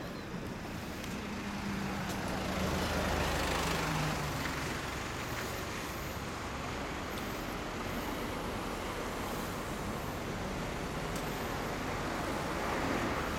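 Road traffic going by: a vehicle swells past about three seconds in, its low engine note dropping as it goes, and another passes near the end, over a steady traffic hum.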